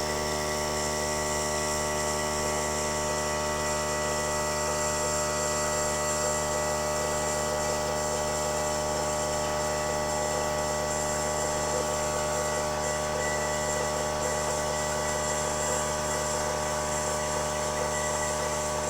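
Air compressor running steadily, a constant motor hum and pump drone with no change in speed.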